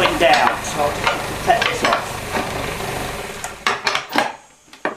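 A cutting tool scraping into softwood turning on a small improvised wood lathe: a gritty hiss with scattered clicks over the lathe's low hum. About three and a half seconds in the hum stops and the noise drops away, leaving a few knocks.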